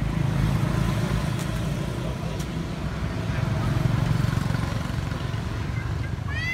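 Low engine rumble of a motor vehicle passing on a nearby road, swelling to a peak about four seconds in and then easing off. A short high squeal that rises and falls comes right at the end.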